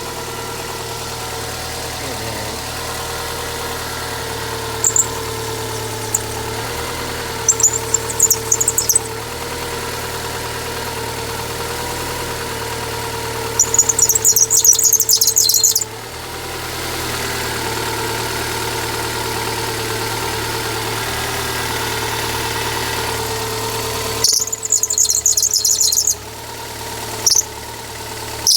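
GRB Subaru Impreza engine idling just after a start, with repeated bursts of high chirping squeal from the engine bay, the longest a couple of seconds each, about 14 and 24 seconds in. The squeal is an abnormal noise that comes when the steering wheel is turned.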